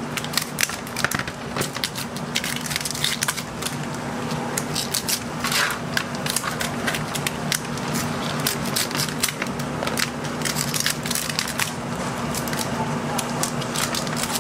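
Kitchen scissors snipping and cracking through cooked king crab leg shells, several pairs at once, giving many sharp clicks and crunches in quick, irregular succession. A steady low hum runs underneath.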